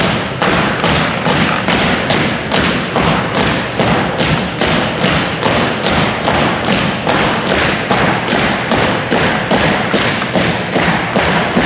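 Marching footsteps of an honor guard drill team stepping in unison on a hardwood gym floor: sharp footfalls in a steady, even rhythm.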